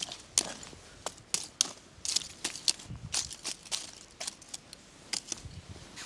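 Irregular crackling and snapping clicks, with a couple of low thuds about three seconds and five and a half seconds in.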